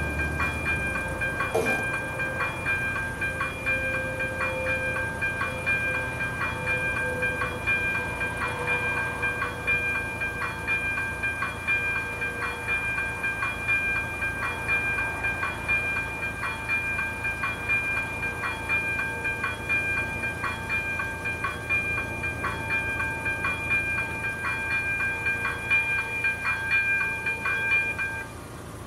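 Electronic warning bell of an AŽD 97 level-crossing signal ringing as a rapid, evenly repeated ding with a steady ringing tone, cutting off suddenly near the end.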